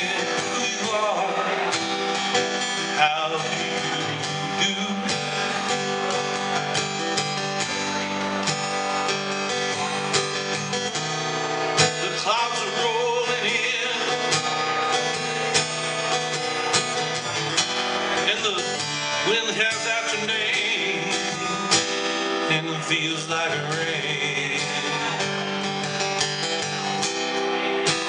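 Steel-string acoustic guitar strummed in a steady rhythm, with a wavering melody line rising and falling above the chords at times.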